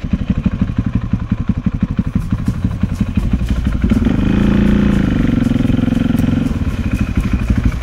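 Single-cylinder four-stroke dirt bike engine running on the trail with a steady firing beat. About four seconds in it revs up, holds higher revs for a couple of seconds, then eases off again.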